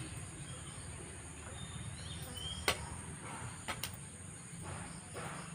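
Steady high-pitched insect chorus, broken by a sharp click about two and a half seconds in and two more about a second later, with a few brief high chirps.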